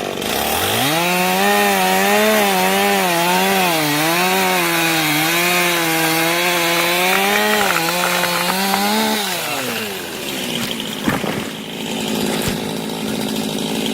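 Two-stroke chainsaw revved to full throttle making the back cut through a tree trunk, its pitch wavering under load for about nine seconds before dropping back toward idle. A couple of sharp knocks follow near the end as the tree comes down.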